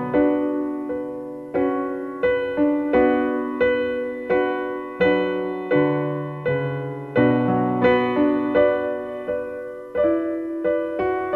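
Background piano music: a slow, quiet melody of single notes and soft chords, each struck and left to fade.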